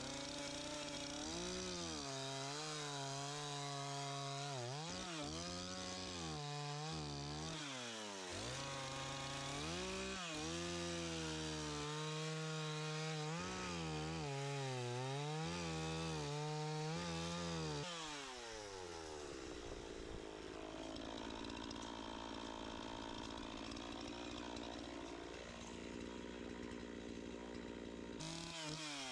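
Gas chainsaw carving into a wood log, its engine revving up and down again and again as the chain bites and is eased off. From about two-thirds of the way in it runs more steadily at a lower pitch.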